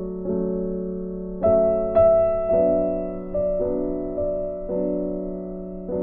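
Background music: slow piano chords, each struck and left to ring before the next.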